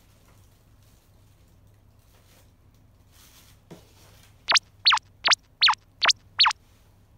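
Six quick, loud, high chirps in an even run, each sliding sharply down in pitch, about a third of a second apart.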